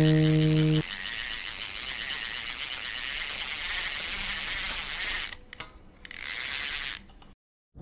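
A fishing reel's drag buzzing as a hooked fish pulls line off on a strike: a steady high-pitched buzz that stops about five seconds in, comes back for about a second, then cuts off. A held musical chord ends in the first second.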